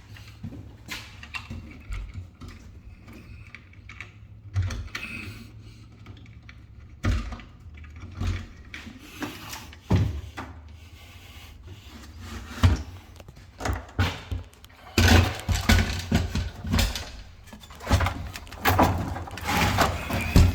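Scattered knocks and thuds with rustling and handling noise, from someone moving about and handling things; busier and louder from about three-quarters of the way in.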